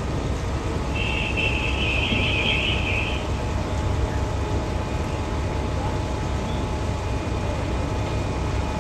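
Steady low rumble of wind and running vehicle engines, with a faint steady hum and a brief high-pitched sound from about one to three seconds in.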